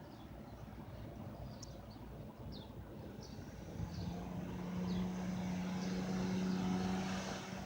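Short, high bird chirps repeat while a steady engine drone builds from about halfway through and grows louder, as if the engine is approaching.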